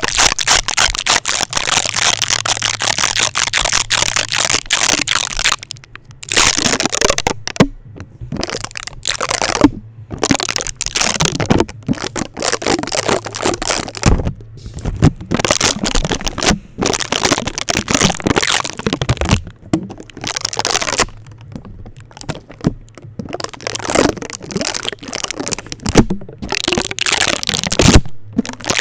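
Sticky tape on a microphone, crackling and crunching as it is rubbed, pressed and peeled quickly. The crackling is continuous for about six seconds, then comes in short bursts with brief pauses.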